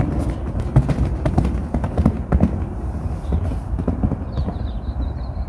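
Pony's hoofbeats on a sand arena, a run of irregular muffled strikes over a steady low rumble.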